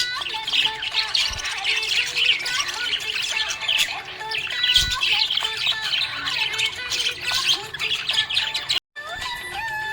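A flock of budgerigars chirping and chattering continuously in fast, high twittering calls, cutting out for an instant near the end.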